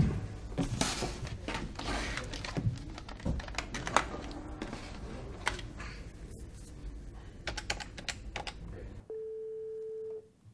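Typing on a computer keyboard: a run of irregular key clicks, some louder than others. Near the end the room sound cuts out and a steady telephone tone sounds for about a second.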